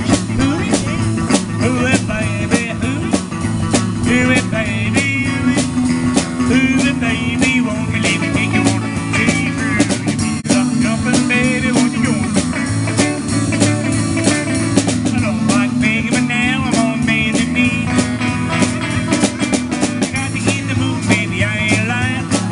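Live blues-rock band playing an instrumental passage with no singing: an electric guitar plays a lead of wavering, bent notes over a drum kit keeping a steady beat.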